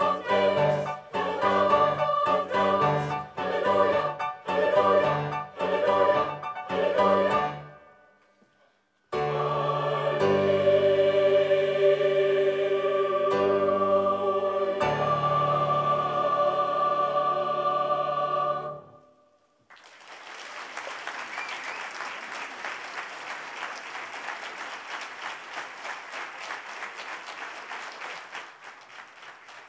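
Children's and youth choir singing unaccompanied: short, separated chords, a brief pause, then long held chords that end abruptly. After a moment of silence the audience applauds for the rest of the time.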